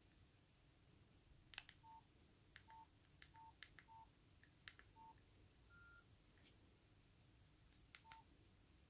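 Faint keypad beeps from a Nokia 5300 XpressMusic as its keys are pressed: quick clicks, six of them followed by a short beep at one pitch, and one slightly higher, longer tone about six seconds in.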